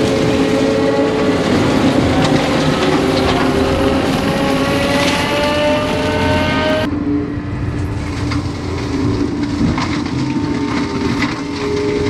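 Tracked skid steer running a Prinoth M450s-1600 forestry mulcher: a loud, steady machine drone with a whine that rises slowly in pitch, and scattered snaps and crackles of brush and wood being ground. About seven seconds in the high hiss drops out abruptly and the drone runs on.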